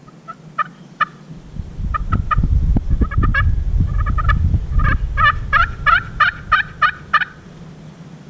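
Series of turkey yelps: short, sharp notes that come faster and more regularly, about three a second, before stopping about seven seconds in. A low rumble runs under the middle stretch.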